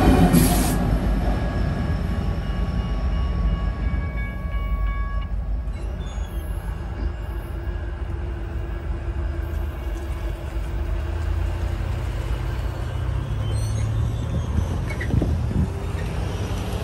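BNSF coal train's rear locomotive rumbling past the grade crossing, loudest in the first second, then a steady lower rumble as the train moves on. The crossing's warning bell rings and stops about five seconds in, as the gates start to rise.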